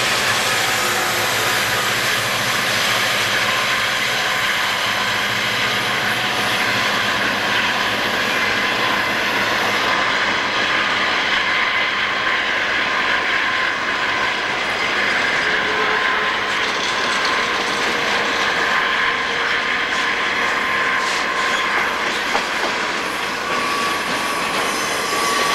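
Southern Pacific diesel freight train passing close by, climbing a curve: locomotives running under load, then a long string of cars rolling past with steady wheel noise. There is a thin flange squeal from the curve.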